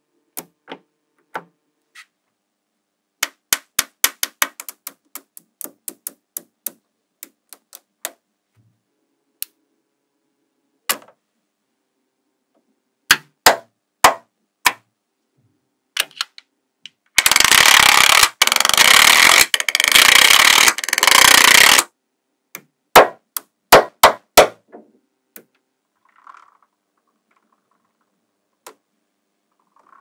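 Small neodymium magnetic balls clicking and snapping together as pieces are pressed onto the maze, in sharp single clicks and quick runs of clicks. About halfway through, a dense rattling scrape of the balls goes on for about five seconds.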